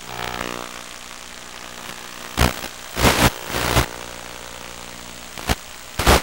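Electric motor and propeller of an FPV RC plane running steadily, swelling briefly at the start. From about two seconds in it is broken by five short, loud bursts of hissing noise.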